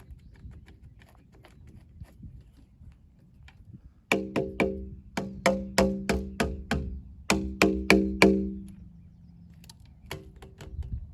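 Repeated sharp knocks that each ring briefly at one steady pitch, coming in bursts of three to seven blows at about four a second.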